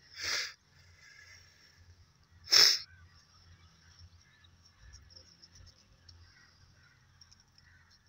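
Knife blade cutting around the middle of a plastic birdshot shell hull, faint scraping throughout, with two short, sharp hissing sounds about two seconds apart.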